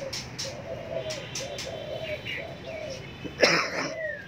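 Doves cooing over and over in low, repeated phrases, with a short loud burst about three and a half seconds in and a brief whistled bird note near the end.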